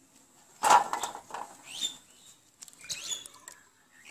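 Wet drumstick (moringa pod) pieces handled out of a bowl of water and dropped into a steel bowl: a loud clatter with dripping about half a second in, then softer clatters. Small birds chirp now and then.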